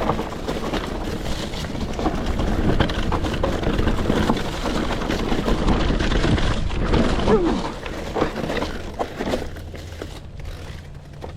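Electric mountain bike rolling fast over a rough dirt trail, its tyres, chain and frame rattling over bumps and roots in a continuous clatter. It quietens about nine seconds in.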